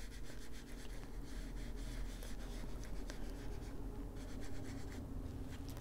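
Small ink blending tool rubbed over paper in short, repeated strokes, working Distress ink onto the page: a soft, scratchy rubbing.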